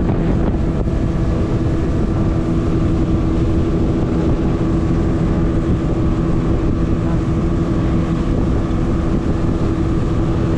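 Fishing boat's engine running steadily: a constant drone with a steady hum, with wind buffeting the microphone.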